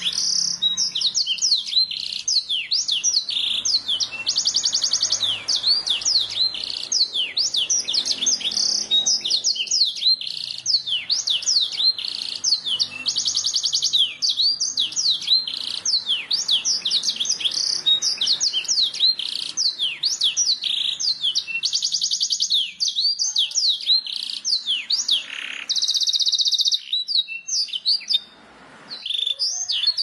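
Domestic canary singing a long, continuous song of quick rising and falling whistled notes, broken every few seconds by fast rolling trills, with a short break near the end.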